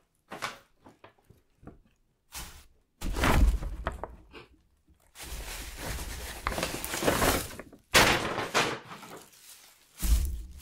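Paper and plastic takeout bags rustling and crinkling as they are handled and unpacked, with heavy thumps of things set down on the table about three seconds in, at about eight seconds and again near the end.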